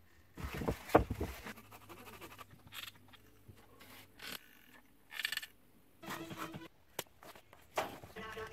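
Intermittent handling noises of foam pipe-insulation tubes and a hot glue gun being worked by hand: scattered scrapes and rubs with a few sharp clicks, the loudest about a second in.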